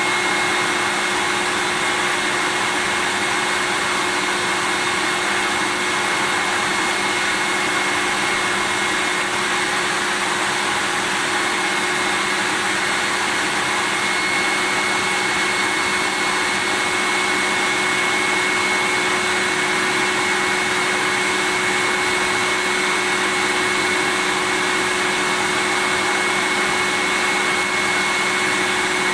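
Vacuum cleaner running steadily: an even rush of air with a steady high whine over it, unchanging throughout.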